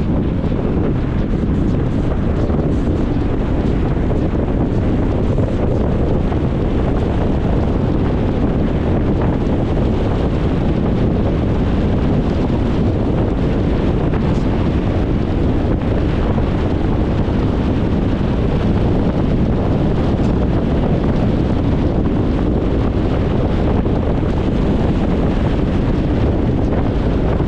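Steady road noise of a car driving: a constant low rush of tyres on tarmac and wind, with no changes.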